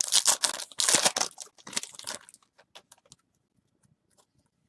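Foil wrapper of a football trading card pack being torn open and crinkled, dense for about two seconds, then a few faint clicks as the cards are handled.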